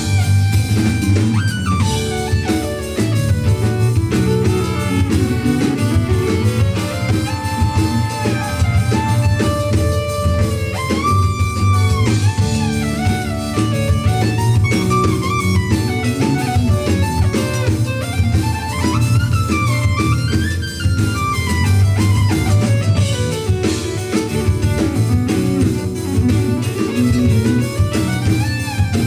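Live jazz-funk fusion band playing: a lead melody with sliding, bent notes over a steady bass line and drum kit.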